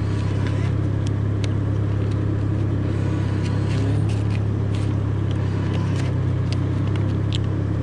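Steady low mechanical hum that does not change, with faint scattered crackles of paper dollar bills being handled.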